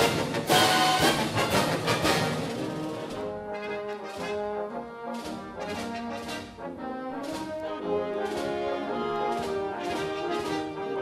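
Orchestral background music led by brass, loud and full for the first few seconds, then a lighter brass melody over a steady percussion beat.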